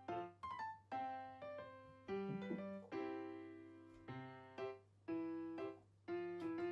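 Background piano music: notes and chords struck every half second or so, each dying away before the next.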